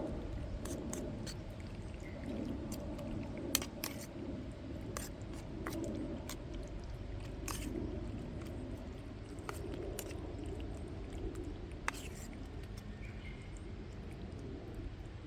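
Wood fire crackling: irregular sharp pops and snaps over a steady low rustle of burning.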